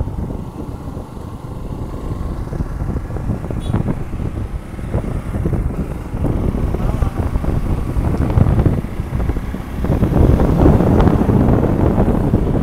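Wind rushing over the microphone of a moving motorcycle, with the bike's running noise underneath; it grows louder about ten seconds in.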